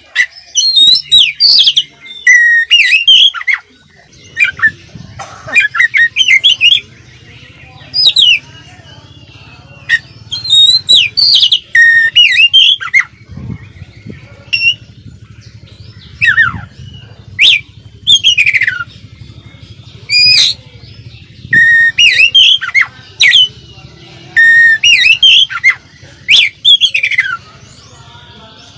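Oriental magpie-robin (kacer) singing loudly: a long run of varied, sharp whistled phrases with quick rising and falling glides, separated by short pauses. The song is full of mimicked calls of other birds.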